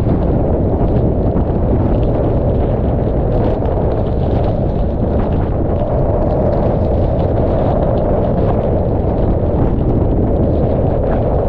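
Hurricane-force wind buffeting the camera's microphone in a loud, steady rumble, with scattered ticks of rain drops striking the camera.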